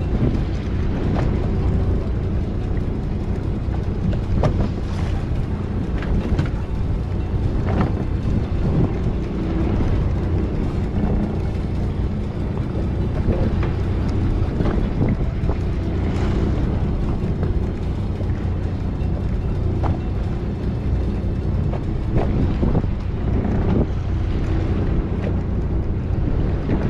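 Fishing boat's engine running steadily, with wind on the microphone and scattered short knocks.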